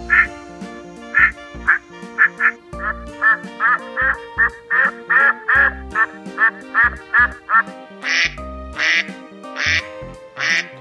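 Ducks quacking over background music: a few single quacks, then a quick run of quacks from about three seconds in, then four louder, harsher quacks near the end.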